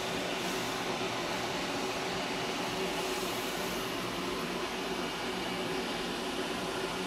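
Steady background hiss with a faint low hum underneath, unchanging throughout, like a fan or air conditioner running in a room.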